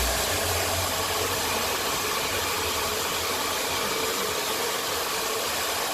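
Handheld hair dryer running steadily, an even rush of blown air.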